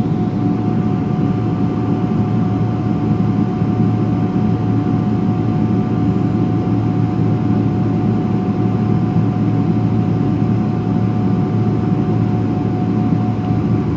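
Boeing 777-200LR's GE90 jet engines running during takeoff: a steady heavy rumble with a steady whine above it.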